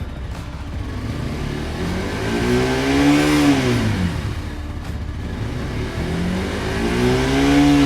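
Bajaj Pulsar NS 200 motorcycle's single-cylinder engine revved twice from idle, the pitch climbing and dropping back each time, with steady idle between the revs.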